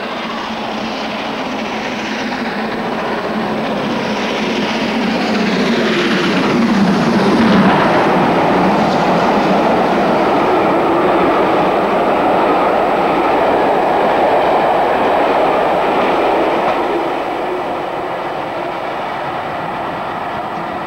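Steam train hauled by a BR Standard Class 4 2-6-4 tank engine running through a station without stopping. It grows louder on the approach, the engine passes about seven seconds in with a falling pitch, then the coaches run past for about ten seconds before the sound fades as the train draws away.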